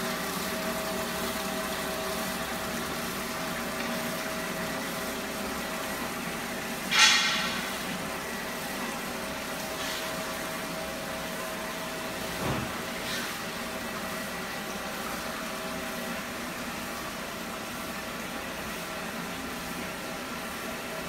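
Belt-driven wet drum magnetic separators running: a steady machine hum with water and slurry running through. A loud sharp clatter sounds about seven seconds in and dies away quickly, and a lighter knock comes around twelve and a half seconds.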